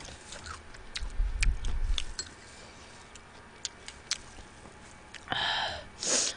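Close-miked eating sounds from a mukbang of spicy steamed blue crab: scattered small wet clicks of chewing and chopsticks. A low rumble comes about a second in, and two short breathy rushes come near the end.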